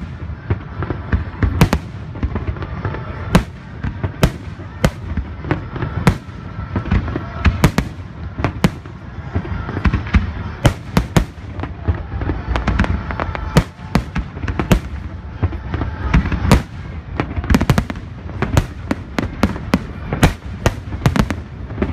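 Aerial fireworks display: shells bursting one after another in sharp bangs with crackling, one or two a second, coming thicker near the end, over a steady low background of the show.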